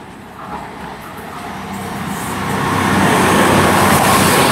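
CrossCountry Class 220 Voyager diesel-electric train approaching and passing through the station, its engine and wheel noise growing steadily louder over the first three seconds, then staying loud.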